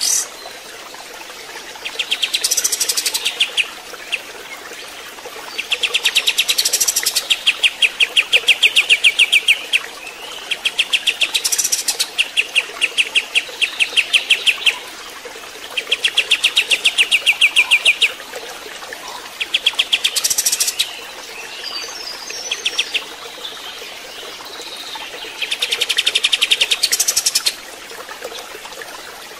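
Kapas tembak (olive-winged bulbul) singing: about seven bouts of rapid, evenly pulsed chattering trills, each lasting one to four seconds. Between the bouts there is a steady background hiss of running water.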